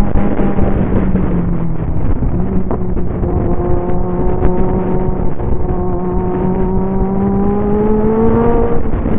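Motorcycle engine running under load on the move, its pitch rising slowly as the bike accelerates, over heavy wind rush on the microphone; the pitch drops sharply near the end.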